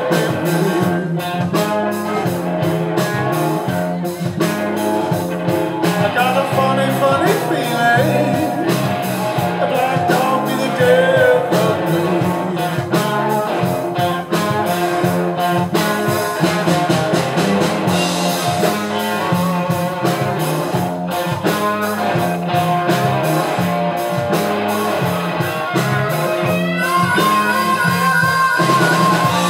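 Live blues-rock band playing an instrumental break: electric and acoustic guitars over bass and drum kit, with bending electric guitar lead lines. Near the end a harmonica comes in with long held notes.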